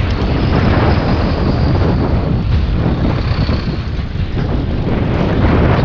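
Wind buffeting the microphone of a camera on a moving bicycle, a loud steady rush, with city traffic heard underneath.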